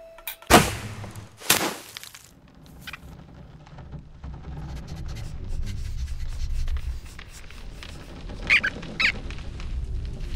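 A bowstring is released with a sharp snap about half a second in, and a second sharp hit follows about a second later. After that a low rumble builds steadily, with two short high squeaks near the end.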